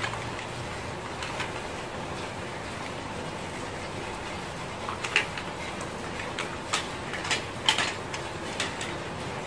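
Steady background hiss with a handful of light clicks and taps in the second half, the sound of something small being handled.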